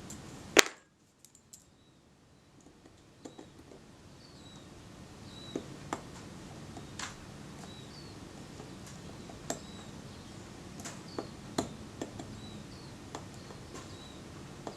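Small, sharp metal clicks and taps from a screwdriver driving tiny screws into the top cover of a Kodak Retina IIIS camera. There is one loud click about half a second in, then scattered lighter clicks.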